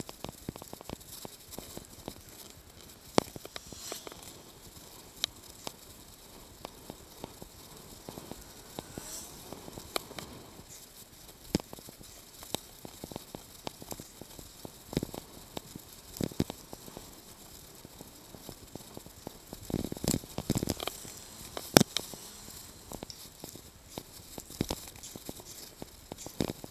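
A bicycle-mounted camera rattling on the ride: irregular clicks and knocks over a faint steady hiss, with a burst of louder knocks about twenty seconds in.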